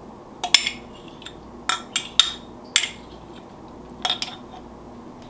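A metal spoon clinking against a glass measuring cup as it scrapes the cup out over a glass mixing bowl: about ten sharp clinks at irregular intervals, some in quick pairs.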